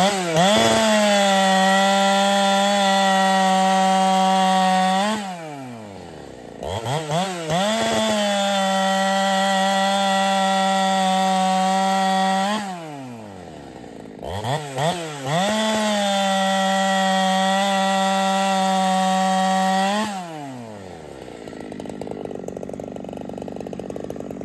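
Neotec Husqvarna 372-clone two-stroke chainsaw making three cuts through a log. Each time it blips the throttle, holds a steady high pitch in the wood for about five seconds, then winds down to idle as it drops through. After the third cut it idles more quietly.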